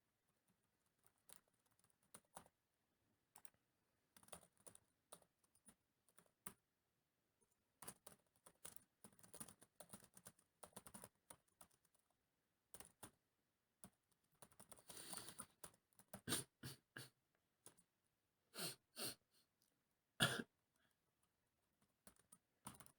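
Computer keyboard typing and clicking in short, scattered runs, faint, with a denser run of keystrokes about fifteen seconds in. A single short, louder sound stands out about twenty seconds in.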